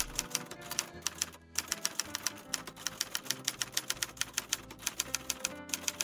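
Typewriter key clicks in a quick, even run of about six or seven a second, pausing briefly twice, over quiet background music.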